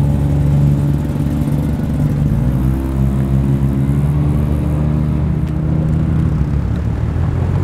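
Mazda RX-4's rotary engine running as the car pulls slowly away, its note rising a little about two and a half seconds in and then holding steady.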